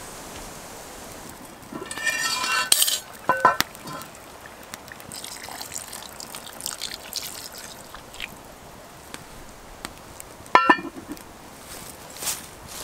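Heavy cast-iron Dutch oven lid lifted with metallic scrapes and ringing clanks about two to three seconds in. The meat and tomato stew sizzles over the fire, and the lid clanks back down, with a brief ring, near the end.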